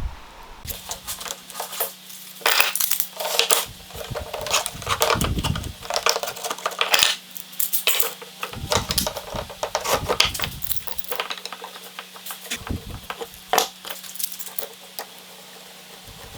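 Small metal objects clinking and tapping in irregular light knocks, over a steady low hum.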